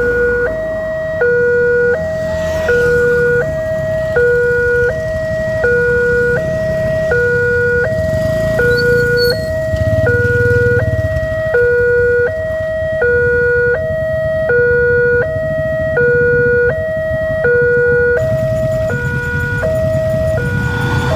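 Railway level crossing warning alarm sounding: an electronic two-tone signal alternating evenly between a lower and a higher note, each note lasting a little over half a second, warning of an approaching train. A low rumble runs underneath.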